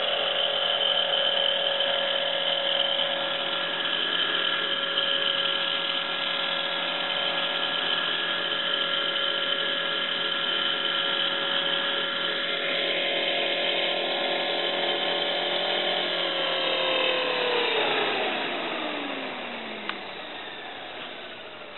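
Exceed Blue Ray 450-size electric RC helicopter running with a steady whine from its motor, gears and rotor; about sixteen seconds in the whine falls in pitch and fades as the motor is cut and the rotor spins down. A single click comes near the end.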